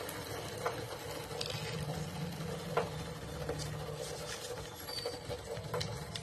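A spanner working a bolt on the motorcycle: about six scattered light clicks over a steady low hum.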